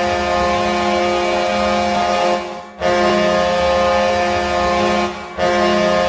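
Ice hockey arena goal horn blasting, a steady chord of several tones. One long blast ends about two and a half seconds in, a second follows and stops just after five seconds, and a third begins.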